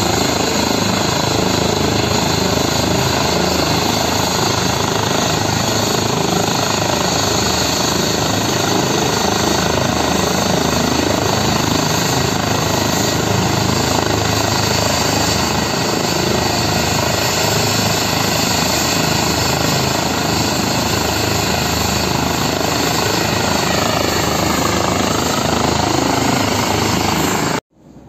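Eurocopter EC135 twin-turbine air-ambulance helicopter running on the ground: a loud, steady mix of turbine whine and rotor noise that cuts off suddenly near the end.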